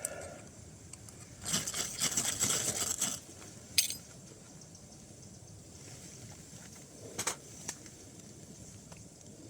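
Ferrocerium rod scraped hard with a Leatherman Surge multitool to throw sparks, a rasping run of strokes lasting about a second and a half. A sharp click follows, and a couple of fainter clicks come later.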